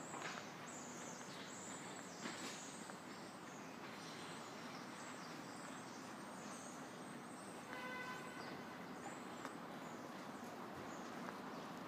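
Steady outdoor background noise with a few faint knocks early on, and a brief pitched tone lasting about half a second, about eight seconds in.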